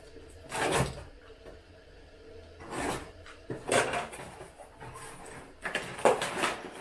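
Cardboard parcel being opened: a utility knife slitting the packing tape, then the box flaps pulled open, heard as short scraping, rustling bursts with the longest cluster near the end.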